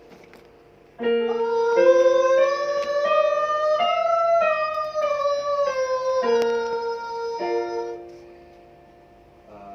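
A singer's voice in a vocal warm-up exercise over piano chords: one held note glides up, then back down, while the piano changes chord beneath it. Near the end the piano holds a last chord, which dies away.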